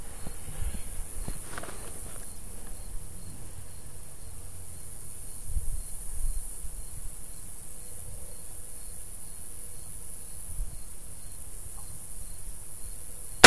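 A steady, high-pitched drone of insects from the surrounding grass, with a few soft low bumps, like handling or wind on the microphone.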